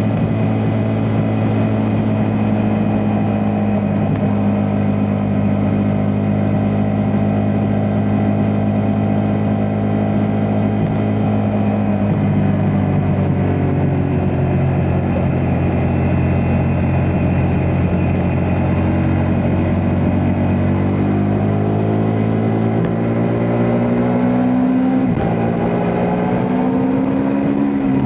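Ducati Multistrada V4S's 1158 cc V4 engine running under way at a steady pitch, then rising in pitch over the last several seconds as the bike accelerates, with a brief drop in pitch about three quarters through before it climbs again.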